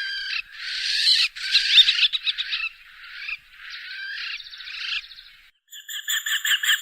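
Small Accipiter hawk calling: a run of harsh, scratchy calls for about five seconds. After a brief gap, a fast, evenly repeated series of call notes begins near the end.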